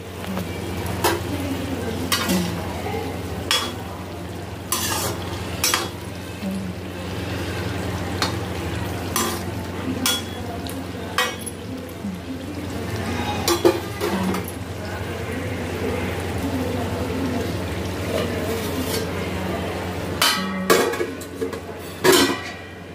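Potato, tomato and green chillies frying in oil in an aluminium kadhai: a steady sizzle with scattered clinks of metal on the pan. Near the end, a cluster of metal clanks as a steel plate is set over the kadhai as a lid.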